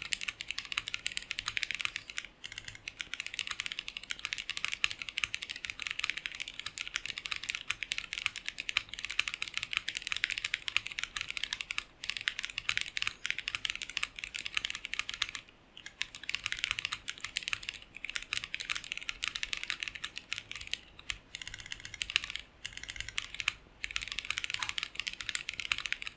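Fast, continuous typing on a Hana60 60% mechanical keyboard with Black Cherry Pie switches: a dense run of keystroke clacks, broken by a few brief pauses.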